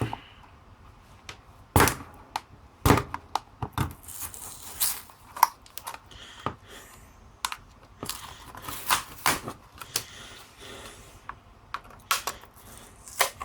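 A tool prying and scraping at a power bank's casing: irregular sharp clicks, cracks and scrapes as the case is forced.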